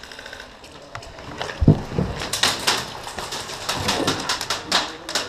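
Airsoft guns firing: quick irregular runs of sharp clicks and snaps, from shots and BBs striking a wall, beginning with a dull thump about a second and a half in.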